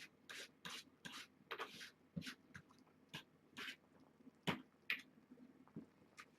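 Kittens eating wet cat food off a paper plate, with short, irregular licking and smacking sounds about every half second.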